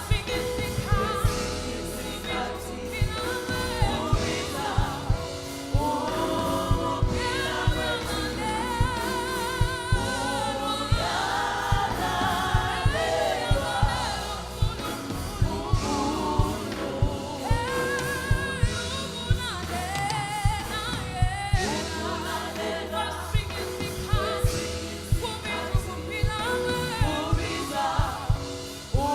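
Gospel song: a choir of voices singing over a bass line and a steady drum beat.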